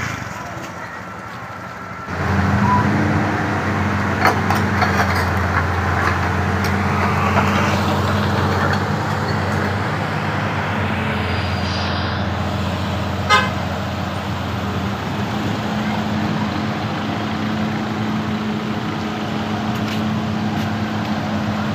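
Large diesel engine running steadily with a low, even hum. It comes in abruptly about two seconds in, and a few sharp clicks sound over it.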